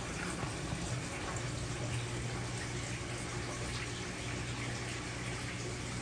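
Aquarium water running and splashing steadily, with a steady low pump hum underneath.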